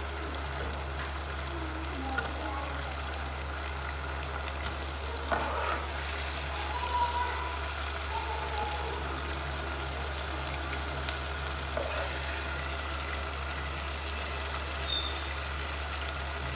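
A steel serving spoon scooping pieces of liver stew out of a steel pot and tipping them into a glass bowl, with a few short clinks and knocks of the spoon against pot and bowl. Under it a steady hiss from the stew in the pot on the stove, and a low steady hum.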